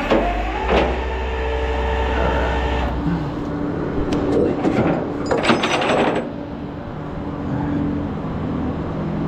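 Vehicle running with a steady low rumble that eases after about three seconds. A knock comes just under a second in, and a brief rattling, hissing burst about five and a half seconds in.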